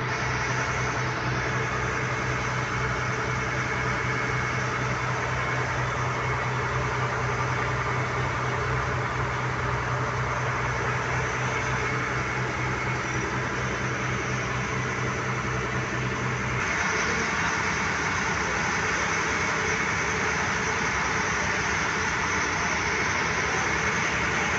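A jangar ferry's engine running steadily, a low hum under a broad hiss of water and wind. About two-thirds of the way through, the low hum drops away and a brighter, steady hiss takes over.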